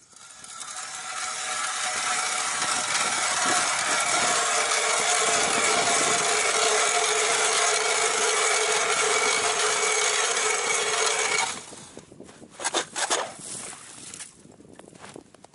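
Hand-cranked ice auger boring through thick river ice: a steady grinding scrape with a ringing drone in it, building over the first two seconds and stopping suddenly about eleven seconds in. A couple of short knocks follow.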